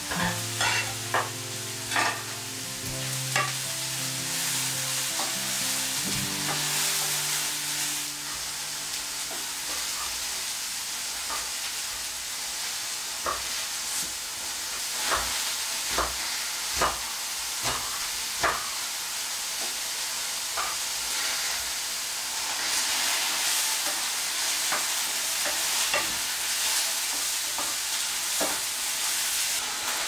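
Sliced mushrooms sizzling in a hot frying pan, the sizzle growing louder in the second half. Sharp knocks of a knife on a wooden cutting board cut through it: a quick run at the start as slices are scraped into the pan, then scattered chops of green vegetables.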